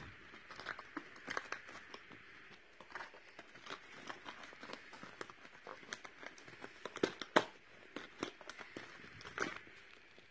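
Hands handling a toy doll's cardboard and plastic packaging: faint rustling and crinkling with scattered small clicks, the loudest a couple of clicks about seven seconds in.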